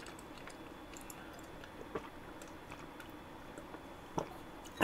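A person drinking milk from a cup: quiet, soft swallowing, with two louder gulps, one about two seconds in and one near the end.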